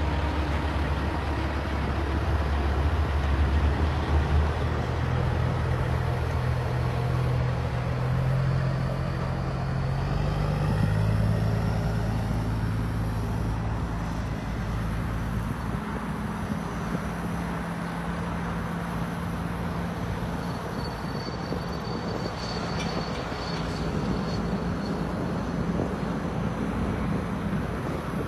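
Diesel engine of a semi truck running under load as it tows an empty lowboy trailer across a gravel lot. The engine note climbs over the first ten seconds, steps up and holds. A thin high whistle comes in for a few seconds about two thirds of the way through.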